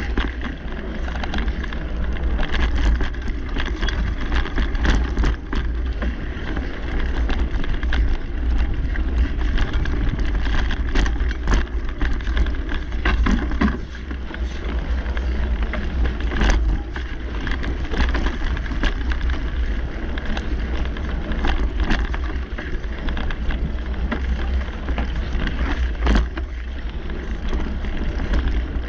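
Mountain bike riding over a dirt singletrack: a steady rumble of wind buffeting the camera microphone mixed with tyre noise, and now and then a sharp knock or rattle as the bike hits bumps.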